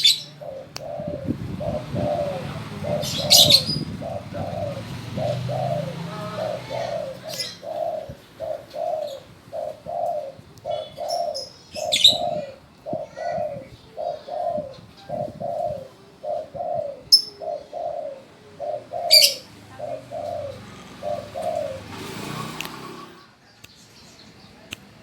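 Spotted dove (tekukur) cooing a long, evenly paced run of short low coos, about one and a half a second, stopping about 21 seconds in. A few sharp high chirps cut in now and then.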